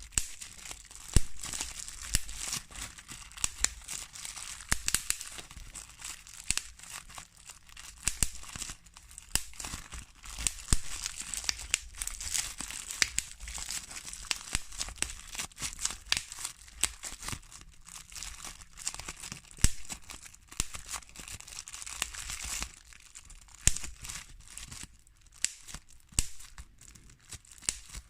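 Bubble wrap squeezed and twisted by hand: the plastic crinkles steadily while bubbles burst in irregular sharp pops, a few of them much louder than the rest.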